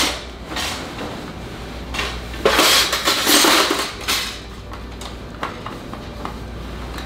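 A folded metal portable fire pit with its grill grates sliding into a cloth carry bag: fabric rustling with metal clinking and scraping, loudest for about a second and a half near the middle, followed by a few light knocks.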